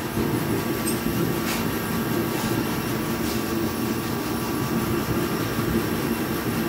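Forced-air torpedo heater running with a steady, even rumble. A few faint taps as someone walks across the concrete floor.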